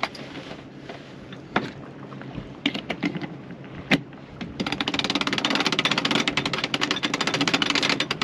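A sailboat's cockpit winch being cranked to hoist the mainsail on the main halyard: a few single sharp clicks, then about halfway through a fast, steady run of ratchet clicks as the winch turns.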